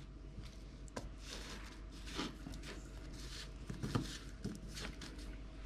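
Hand pressing and turning raw fish pieces in a ceramic bowl of dry seasoned crumb coating: faint soft rustling and patting, with a few light taps.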